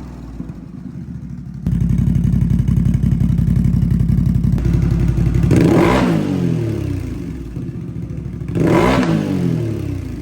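CFMOTO CFORCE 1000 ATV's V-twin engine on its stock header, idling from about two seconds in and then revved briefly twice, the pitch rising and falling each time, once midway and once near the end.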